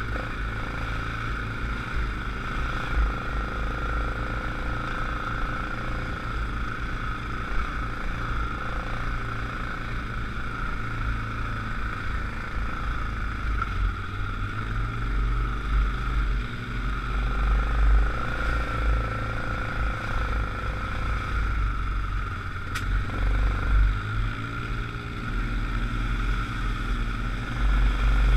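ATV engine running steadily along a trail: a constant whine over a low rumble that swells and dips with the rough ground.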